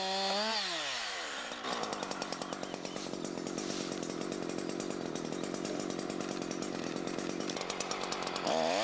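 Husqvarna chainsaw revving, then cutting down through a log for about seven seconds, its engine pulled down under load. This is the top cut of a cross-cut, made to meet the first cut from underneath. Near the end the saw breaks free and the engine revs up again.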